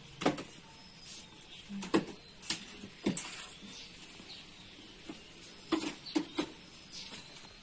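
Small goods and objects being handled on a shop counter: about seven sharp knocks and clicks at irregular intervals, with faint high chirps behind them.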